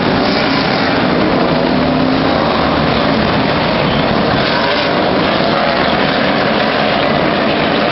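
Stock cars racing past on a paved oval, their engines at speed making a loud, continuous din. Several engine notes overlap and waver in pitch as the cars go by.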